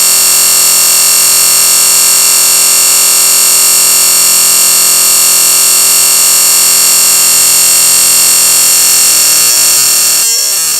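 Marbles spinning around inside a bowl: a loud, steady, high rolling whir with many ringing tones. About nine seconds in it breaks up into separate rattles and clicks and starts to fade as the marbles slow down.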